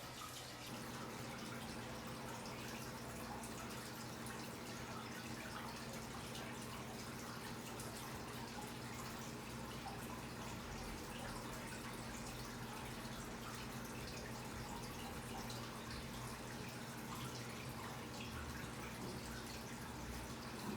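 Steady low room hum with faint, scattered ticks.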